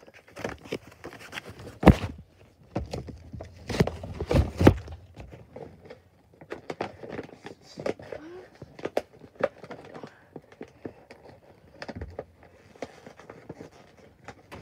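Plastic-and-cardboard toy packaging being handled and worked open: irregular clicks, knocks and crinkles, with a hard thump about two seconds in and a burst of louder knocks around four seconds in.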